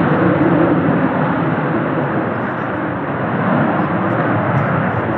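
Fixed-wing aircraft engine noise, steady and loud, with a slowly shifting pitch.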